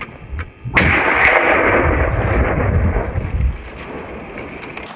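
A single gunshot from a hunting gun about a second in, followed by a long rolling echo across the valley that slowly fades.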